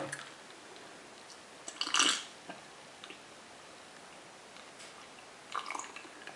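A person drinking from a glass of iced sparkling water at a meal: one short loud noise about two seconds in, then a few fainter mouth and swallowing sounds near the end.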